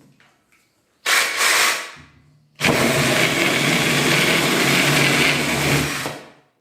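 A drill-powered mini chainsaw attachment running: a short burst about a second in, then the drill motor drives the chain steadily for about three and a half seconds before stopping.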